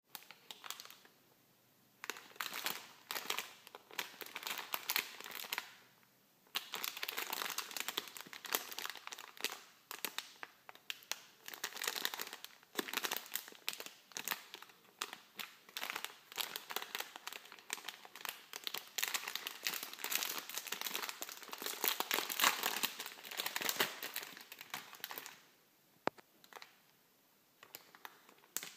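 Metallised foil snack packet crinkling as it is handled, squeezed and torn open, in long stretches broken by short pauses and a quieter gap of a couple of seconds near the end.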